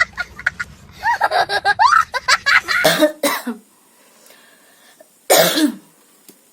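A woman coughing: two quick coughs about three seconds in and one harder cough near the end, after a stretch of high, wavering vocal sounds.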